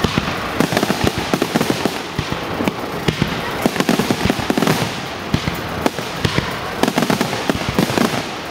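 Fireworks display: aerial shells bursting in a rapid, continuous barrage, many bangs and crackles a second.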